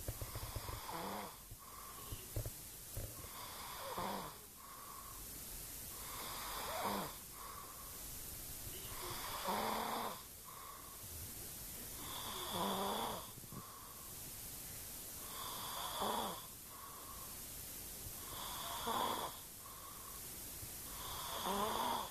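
A sleeping man snoring, one snore roughly every three seconds, each with a fainter breath between.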